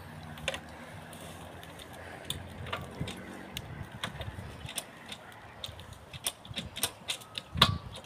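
Irregular light clicks and knocks from a small trail motorcycle being handled while the rider sits on it, with one louder knock near the end.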